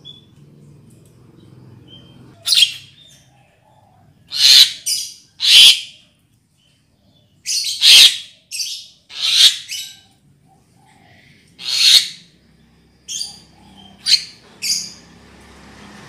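Javan myna (jalak kebo) calls, a recorded lure call for attracting mynas: about a dozen short, loud calls in irregular clusters, some in quick pairs, with gaps of a second or two between groups.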